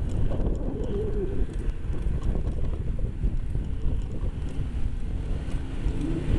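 Wind rumbling on the microphone while riding a bicycle, with light rattles. A brief low wavering tone comes about a second in and another near the end.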